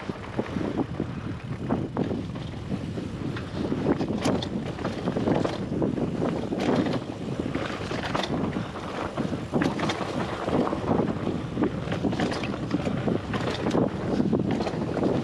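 Wind buffeting the action camera's microphone as a mountain bike rolls down a rocky dirt trail. The tyres crunch over loose gravel, and the bike rattles with frequent, irregular sharp clicks over small rocks.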